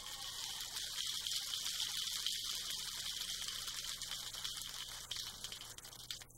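Audience applauding in a theatre, thinning to a few separate claps near the end before it cuts off.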